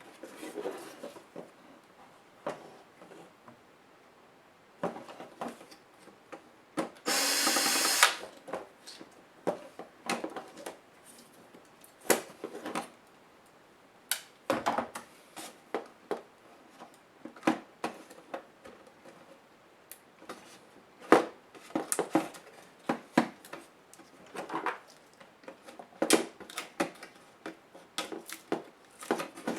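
Sony VGN-CR220E laptop being taken apart by hand: many small clicks and knocks of plastic parts and screws being handled. About seven seconds in there is one brief whir of a small electric screwdriver, about a second long, which is the loudest sound.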